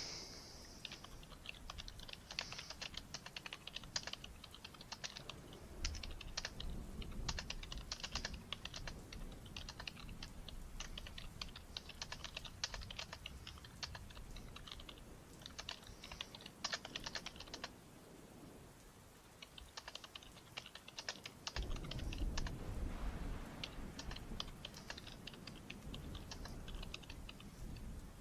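Typing on a computer keyboard: quick runs of key clicks with short pauses between bursts. About two-thirds of the way through, a low rumble swells underneath the typing.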